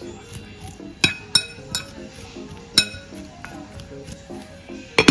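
Glass dishware clinking in about five sharp, ringing strikes, spread unevenly, over background music.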